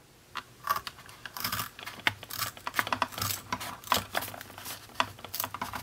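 Scissors cutting through a thick leather belt, a string of irregular crunching snips as its edge is trimmed off at an angle.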